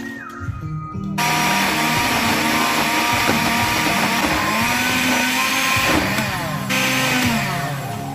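Countertop electric blender running, grinding ginger, peppers, onions and spices with water into a wet paste; it starts about a second in and dies down near the end. Background music plays underneath.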